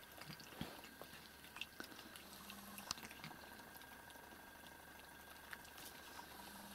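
Faint, scattered small clicks of cats chewing pieces of fish from a shared plate.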